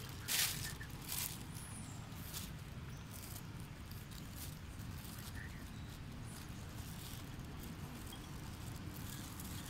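A macaque feeding on food scraps: two short, sharp rustles about half a second and a second in, then faint scattered clicks and rustles, over a steady low outdoor rumble.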